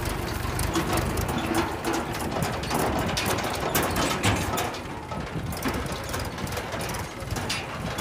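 Mahindra 275 DI tractor's diesel engine running as it moves with a trailer in tow, under a busy clatter of sharp clicks and rattles from the trailer and hitch. The noise eases a little about five seconds in.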